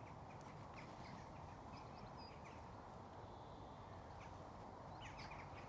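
Quiet open-air ambience: a faint steady background hiss with a few faint, brief bird chirps.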